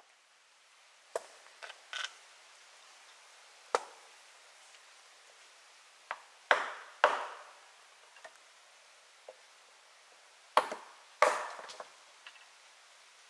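Hammer blows on wood inside a small log cabin: about ten irregular strikes, some single and light, the loudest in pairs about halfway through and near the end, each ringing out briefly in the enclosed room.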